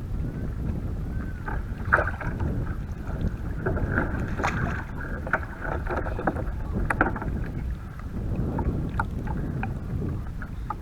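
Water splashing and slapping around an Epic V7 surf ski as it is paddled, with a few sharp knocks at uneven intervals over a low, steady wind rumble on the microphone.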